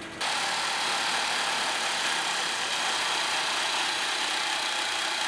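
Underground two-boom hydraulic drill rig running with a steady, even mechanical noise that sets in abruptly and holds at one level.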